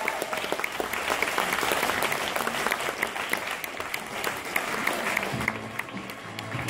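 Audience applauding with many hands clapping. About five seconds in, music with low sustained notes begins under the clapping.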